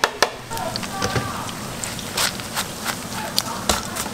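Battered twigim deep-frying in a wok of hot oil: a steady sizzle broken by many sharp crackles and pops, the loudest near the start.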